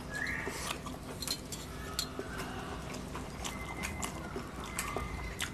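Close-up eating sounds of people eating rice with their fingers: chewing and lip smacks, with many short sharp clicks of fingers and food against metal plates. A brief rising squeak comes right at the start.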